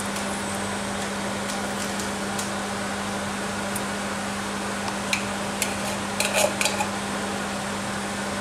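Metal spoon scraping and tapping against the inside of a tin can of coconut milk, with a run of sharp metallic clicks in the second half, over a steady low hum.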